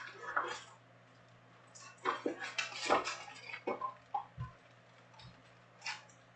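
Wrapped Topps Chrome trading-card packs rustling and crinkling as they are lifted out of a cardboard hobby box and stacked, with light taps and scrapes of cardboard. The handling is busiest from about two to four seconds in.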